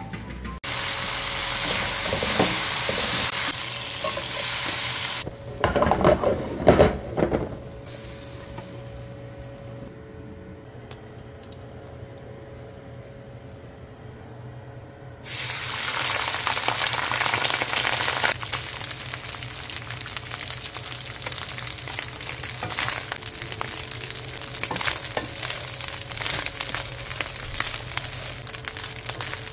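Food frying and sizzling in a pan, a dense crackling hiss. A few knocks come about five to seven seconds in, the sizzle drops to a quieter stretch for several seconds, then returns at full strength.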